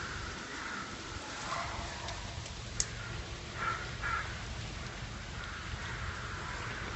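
Faint outdoor background from the forest camera's microphone, with a single sharp click a little before the middle and two short animal calls about half a second apart soon after.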